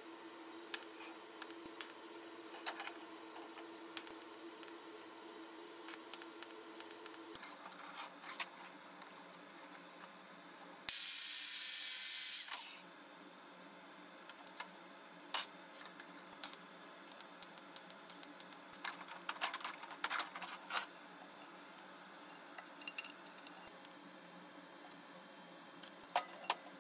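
Sheet-metal work on a steel welding table: scattered light clicks and clinks of thin steel and locking pliers being handled, over a steady hum that stops about seven seconds in. Near the middle a loud, even hiss lasts about two seconds.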